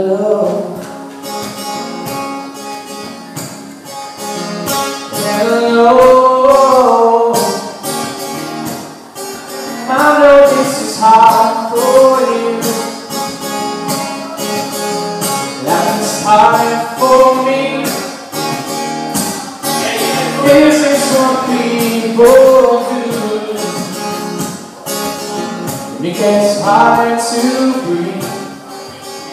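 A man singing live to his own acoustic guitar, sung phrases coming in waves over steady strumming.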